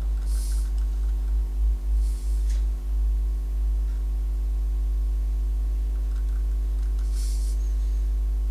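Steady low electrical hum with a row of even overtones, the background noise of the external microphone. Three brief soft rustles, about half a second, two seconds and seven seconds in, as the coiled Lightning cable is handled.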